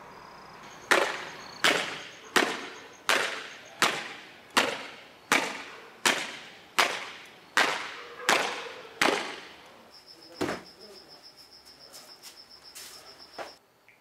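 A cloth swung and snapped down hard over and over, making a dozen sharp cracks about 0.7 s apart, each with a short ringing tail, then one more crack after a pause. Crickets trill faintly, most plainly near the end.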